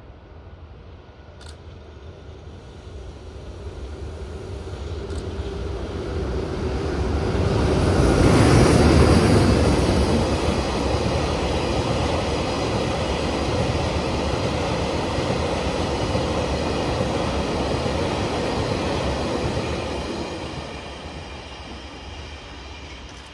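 JR Freight EH200 electric locomotive passing with its train. The sound builds to its loudest about eight to nine seconds in, stays up for about ten seconds as the rest of the train rolls by, then fades near the end.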